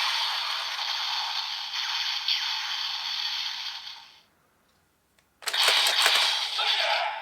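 Electronic sound effect from a CSM Kamen Rider Gaim transformation toy's small speaker. A long hissing effect plays for about four seconds and fades out. After about a second of silence, a few sharp clicks start a new burst of effect sound.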